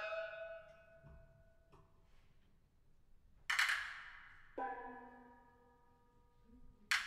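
Sparse solo percussion strokes from a concerto: a metallic strike that rings and dies away over about a second, then a louder strike with a long shimmering decay about three and a half seconds in. A held pitched note follows a second later, and another sharp strike comes at the very end.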